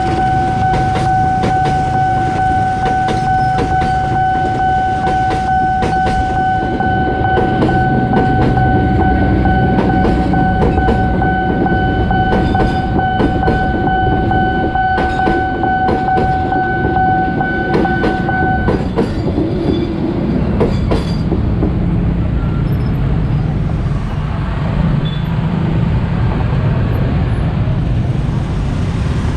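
Train passing over a level crossing, its wheels clattering over the rail joints, while the crossing alarm sounds a steady electronic tone. The alarm cuts off suddenly about 19 seconds in, the clatter ends soon after, and road traffic noise takes over.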